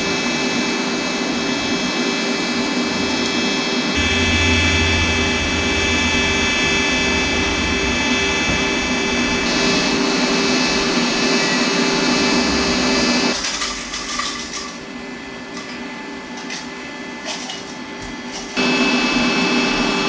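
An electric power tool's motor running steadily, in stretches that change abruptly, with a quieter part near the middle holding a few sharp clicks.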